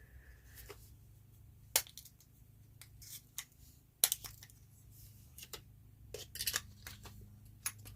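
Scattered small clicks and taps of a vintage flashlight's parts being handled and pushed together during reassembly, with sharper clicks about two and four seconds in and a quick run of them near the end.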